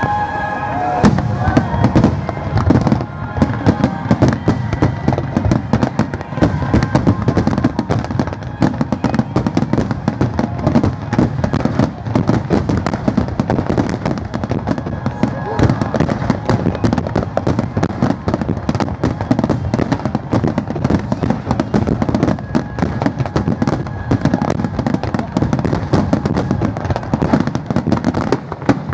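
Aerial fireworks shells bursting in a rapid, continuous barrage, many bangs following one another with no break.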